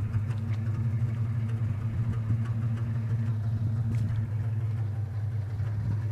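Rolls-Royce 20/25's 3.7-litre straight-six engine idling steadily, a low even hum heard from behind the car near the tailpipe.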